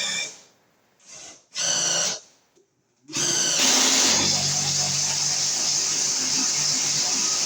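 Electric drill briefly spun up twice, then about three seconds in it runs steadily as it bores a hole for the new switch-loop wiring.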